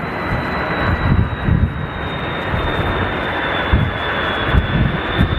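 Jet airliner engines running: a steady rush of noise with a high, held whine and low rumbling surges.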